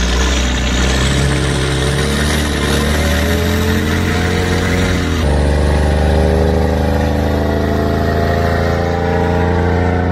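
Cummins N14 inline-six marine diesel engine running hard under throttle, its note climbing slowly as it picks up speed, with an abrupt break about halfway. It is being test-run after new injectors and a fuel injection pump were fitted.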